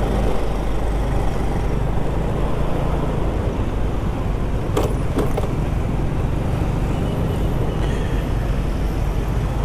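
Yamaha Mio scooter's single-cylinder four-stroke engine running steadily while riding in traffic, with road noise. Two quick sharp clicks come about halfway through.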